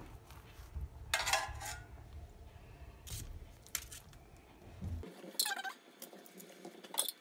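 Metal spoon clinking and scraping lightly against a metal pan and tray while spreading melted margarine over rolled dough, in a few short runs: about a second in, around 3 s, around 5.5 s and near the end.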